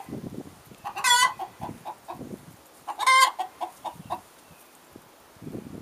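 Rhode Island Red hen squawking twice, about two seconds apart, each loud call trailing off into a quick run of short clucks.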